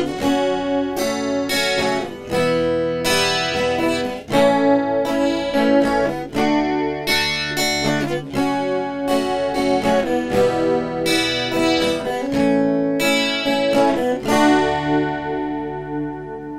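Guitar played through a mixer's built-in DSP effect (Ashley Point 6 Multi Pad), chords struck about once a second and ringing on; near the end the last chord is left to ring and fade away.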